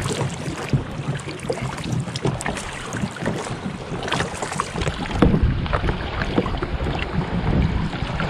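Kayak paddles splashing in the sea, with many small drips and trickles of water, over wind buffeting the microphone.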